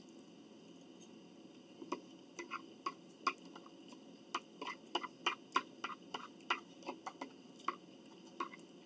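Close-up eating sounds: a run of sharp, irregular wet mouth clicks and smacks from chewing, two or three a second, starting about two seconds in.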